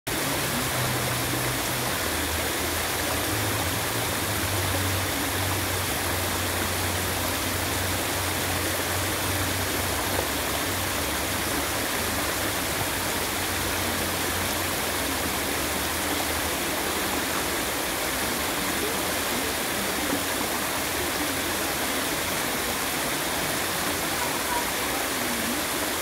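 Water rushing steadily over a small stepped stone cascade and down a shallow, rocky stream bed.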